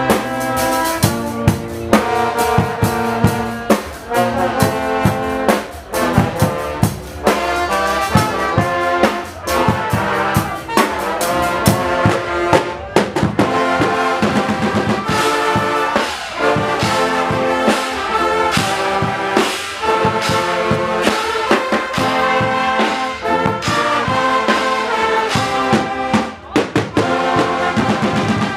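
Guggenmusik carnival band playing a tune: trombones and trumpets over a driving beat of bass drum and cymbal hits.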